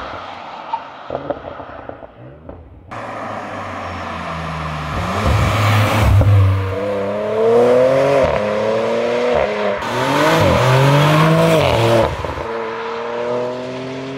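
Audi RS5 B9's twin-turbo V6 with a sport exhaust accelerating hard, quieter at first, then the revs climbing and dropping back through several upshifts.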